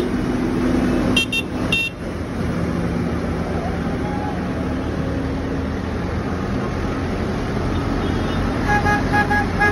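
Diesel engines of a slow procession of tractors running as they pass close by, with horns tooting: two short high beeps about a second in, then about four quick lower toots near the end.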